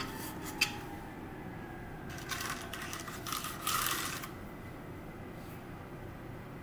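Sharp plastic clicks as a mechanical keyboard stripped of its keycaps is handled, then about two seconds of scratchy rubbing and rattling as a hand brushes across the bare switches.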